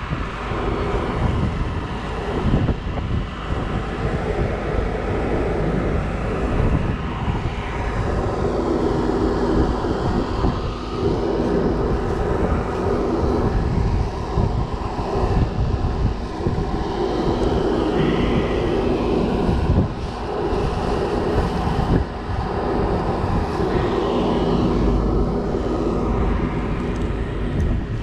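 A steady low engine drone with a held hum running under it, its hum strongest through the middle stretch.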